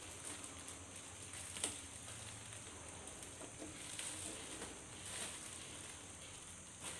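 Clear plastic wrapping crinkling and rustling as it is pulled and crumpled off a small guitar, with a sharper crackle about one and a half seconds in.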